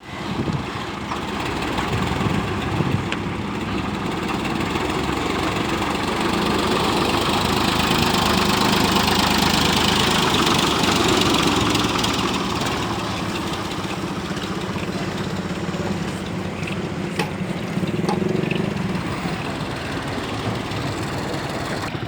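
Ford tractor's engine running under load while the tractor is stuck in mud, growing louder for several seconds near the middle and then easing back.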